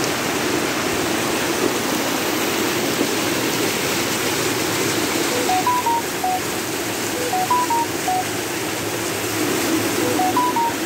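Muddy floodwater rushing down a street, a steady loud rush. About halfway through, a short five-note electronic beeping tune, rising then falling, starts and repeats every two to three seconds, three times in all.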